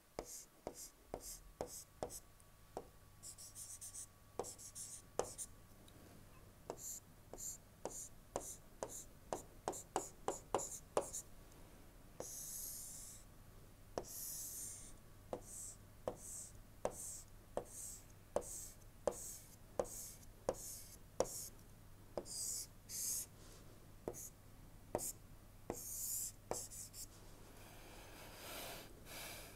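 Stylus tapping and scratching on a tablet screen while drawing: many sharp taps, some in quick runs, and several short scratchy strokes, over a faint low hum.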